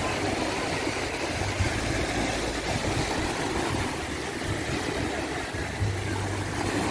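Sea waves washing onto a sandy beach, with sea wind buffeting the microphone in low gusts that come and go.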